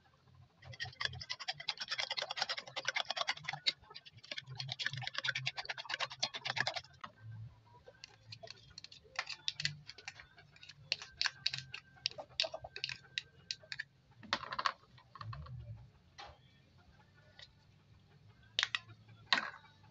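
A metal spoon beating raw eggs in a glass dish: a rapid run of clicks against the glass for about six seconds, with a short break. After that, a spoon taps and scrapes a small plastic bowl in a string of separate clicks as seasoning is added, with a louder scrape about two-thirds of the way in.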